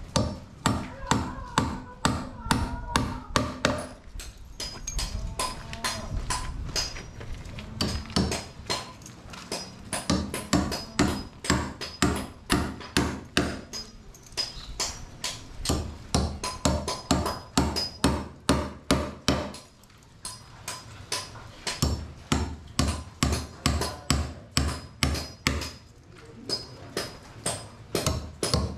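Hammer driving 4-inch nails into a mahogany door frame: runs of sharp strikes at about two to three a second, broken by short pauses, each blow with a thin metallic ring.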